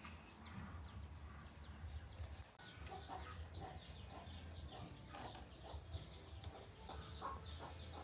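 Chickens clucking faintly, with many short high chirps scattered throughout and a low steady hum underneath.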